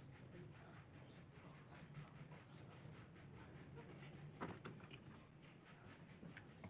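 Near silence: a faint low hum with scattered small clicks and taps, the sharpest about four and a half seconds in.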